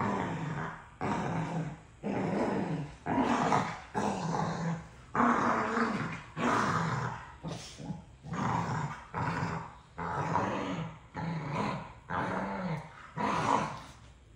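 Dog growling over a toy in a long run of short growls, about one a second.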